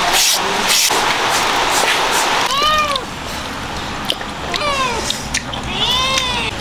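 A cat meowing three times, each call rising and falling in pitch for about half a second, over a steady hiss that eases about three seconds in.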